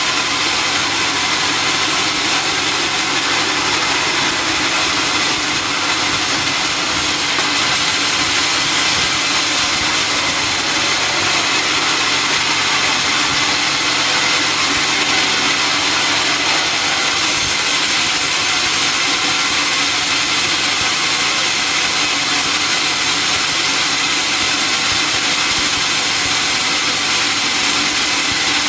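Sawmill saw running with a loud, steady, unbroken noise that does not change.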